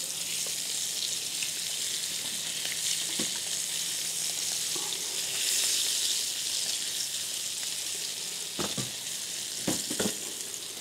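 Sardines frying in oil in a pan, a steady sizzle. A few light knocks come near the end.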